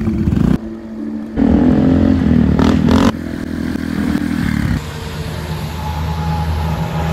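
Small motorcycle and scooter engines in a series of short clips cut together. About a second and a half in, an engine revs with its pitch rising and falling. In the last few seconds an engine runs steadily, growing somewhat louder.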